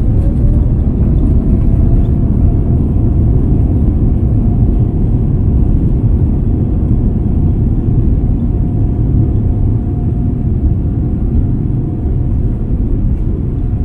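Boeing 787-9 GEnx-1B engines heard from inside the cabin during the take-off run: a loud, steady rumble. An engine whine rises in pitch just at the start as thrust comes up, then holds steady.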